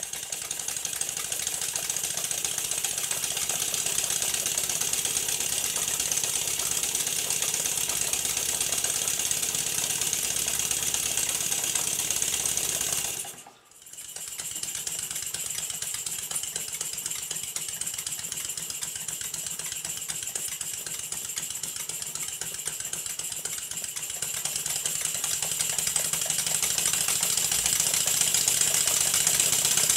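Two Stuart S50 model horizontal steam engines running together on compressed air: a rapid steady beat of exhaust puffs and mechanical clatter under a constant air hiss. The sound drops out briefly about halfway through, then resumes and grows louder near the end.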